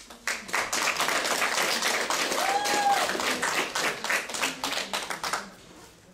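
Audience applauding: dense hand clapping that dies away about five and a half seconds in, with one short call rising and falling in the middle.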